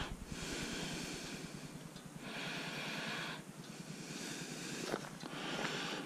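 Three slow breaths close to the microphone, each a soft rush lasting one to two seconds, with a faint click about five seconds in.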